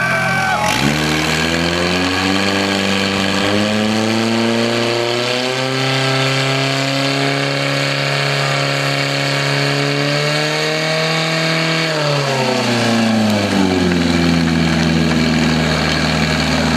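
Portable fire pump's petrol engine revving hard about a second in and holding a steady high speed while it drives water out to the attack hoses, then dropping back to a lower, steady speed about twelve seconds in.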